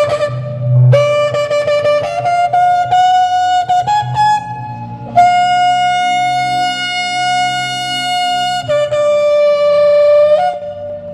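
Shofar blown in a sequence of blasts. It starts with choppy broken notes, then climbs in pitch to one long steady blast of about three and a half seconds, and drops to a lower held note that ends with a brief upward flick near the end.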